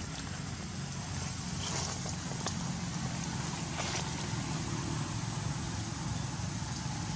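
A steady low hum, like a distant motor, under an even hiss, with a few faint brief rustles, a couple of seconds in and again about four seconds in.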